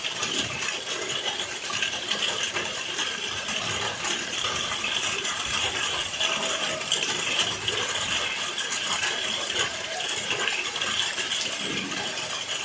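Rain falling steadily on wet ground and puddles, a dense, continuous spray of small drop impacts.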